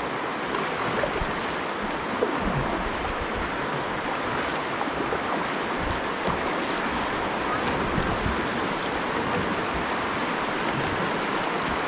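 Shallow rocky river riffle: water rushing steadily over rocks and around a kayak hull.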